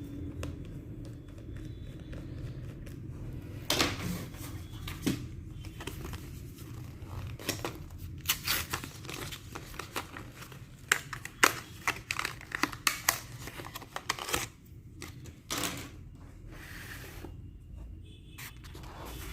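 Irregular small clicks and taps of hands working inside an open laptop, fitting an M.2 SSD into its slot.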